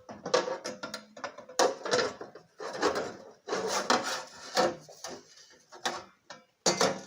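Irregular scraping, rubbing and sharp knocks from a steel body part being handled and fitted by hand.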